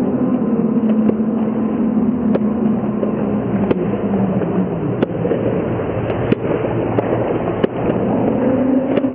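Swimming-pool water heard through a submerged microphone: a muffled rumble of churning water with a low hum and about a dozen sharp clicks scattered through it.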